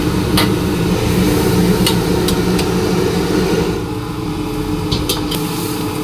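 Metal spatula clanking against a wok several times, over a steady low mechanical hum.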